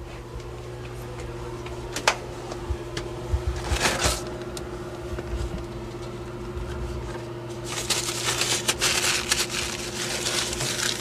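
Paper towels rustling and being crumpled, with a few sharp clicks, over a steady low hum. The crackling grows dense from about eight seconds in.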